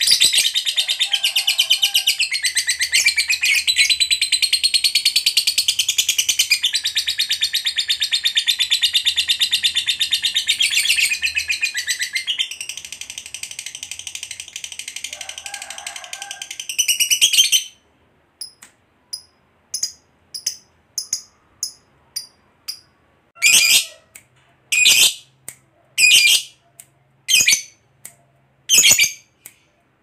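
Lovebird giving a long, unbroken, rapid chattering trill (the "ngekek panjang" prized by lovebird keepers) for about seventeen seconds, then breaking off into separate short, sharp chirps about once a second.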